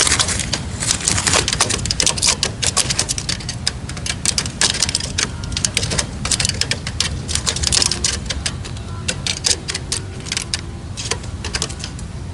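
Red-legged partridges calling: runs of rapid, harsh clicking notes in clusters, thinning out toward the end, over a steady low rumble of wind.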